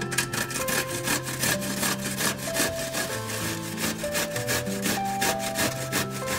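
A zucchini being grated on a stainless steel box grater: quick, even rasping strokes as the vegetable is rubbed up and down the blades.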